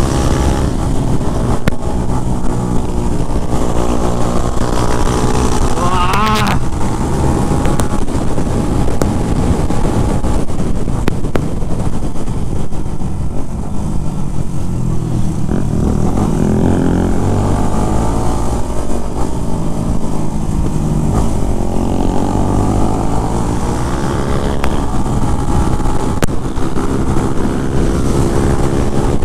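Motorcycle engine running under way, its pitch slowly rising and falling with the throttle.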